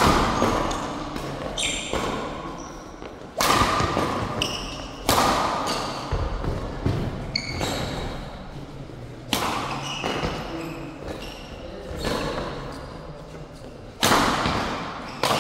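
Badminton rackets striking the shuttlecock in a doubles rally: sharp cracks, each echoing in the large hall, with several loud hits a few seconds apart and lighter ones between. Shoes squeak briefly on the court.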